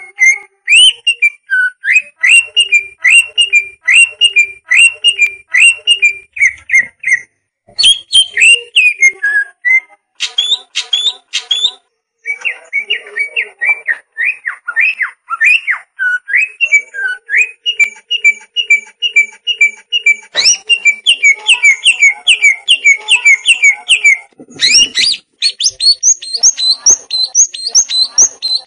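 Greater green leafbird (cucak ijo) singing a loud, fast song of repeated whistled notes, several a second. It breaks off briefly a few times and changes to new phrases, some higher and quicker.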